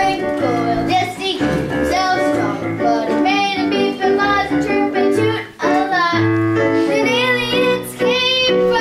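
Children singing a song from a musical, with held instrumental notes as backing.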